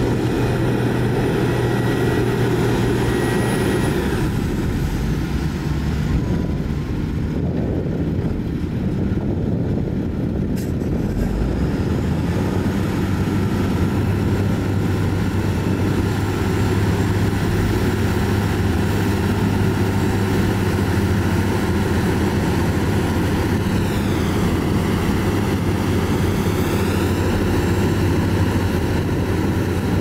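Heavy diesel engine of a loaded dump truck running steadily as it drives and backs up, its low hum shifting slightly in pitch a few times.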